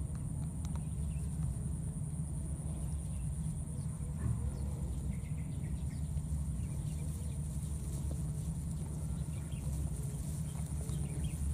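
Outdoor ambience by a grassy waterside: a steady low rumble, a constant high-pitched whine, and faint scattered clicks and rustles.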